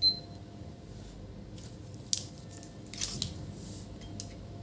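Multimeter continuity beeper giving a short high beep at the start, followed by a few light clicks and taps of the test probes on the power-supply board while diodes are checked.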